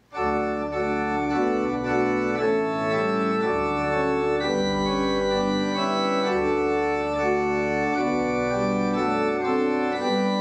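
Organ music: full sustained chords with a bass line, the notes moving on about every second.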